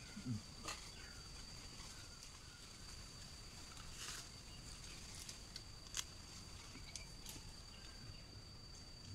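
Faint outdoor ambience with a thin, steady, high insect drone, broken by a few short sharp snaps and rustles of guava branches and leaves being climbed and pulled for picking fruit.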